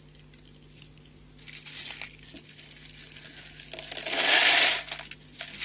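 Nylon fishing line and beads handled close to the microphone: light crinkling rustles, then a louder rustling rush lasting about a second, about four seconds in, as the threaded line is pulled through the beads.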